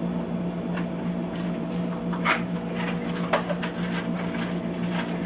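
A steady machine hum with a few scattered short clicks and knocks over it.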